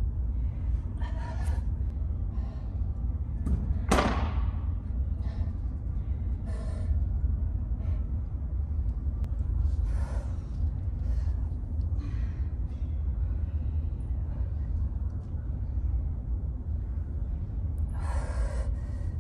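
A person's sharp, effortful breaths and gasps every few seconds while doing push-ups, the loudest about four seconds in, over a steady low rumble of a large gym room.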